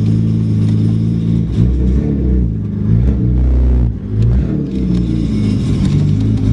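Nissan Skyline R32 GT-R's RB26 twin-turbo straight-six running steadily just after starting. From about a second and a half in, the engine note rises and falls repeatedly.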